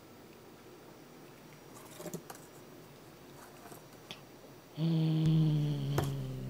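Somali cat growling a low, drawn-out warning growl for about two seconds near the end, a threat to keep hold of a cat-teaser toy. A few light taps and scuffs come before it.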